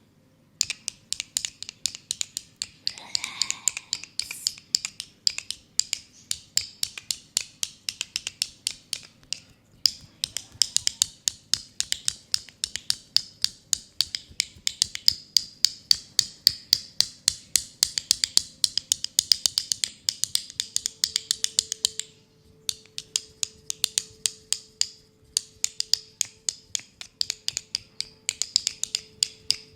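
Oiled hands massaging skin in a fast rhythm, making quick wet clicks and smacks several times a second, with short pauses about ten and twenty-two seconds in.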